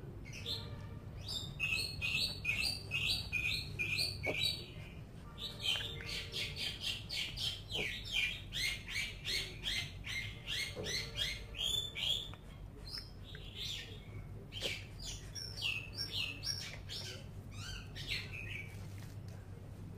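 A rapid series of short, high-pitched peeping calls from a small animal, about three a second, each dipping slightly in pitch. The calls thin out over the last several seconds, over a steady low hum.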